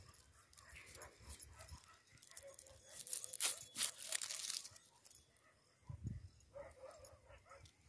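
A knife scraping and tearing the dry papery skin off a red onion, loudest as a crackly rasp about three to four seconds in.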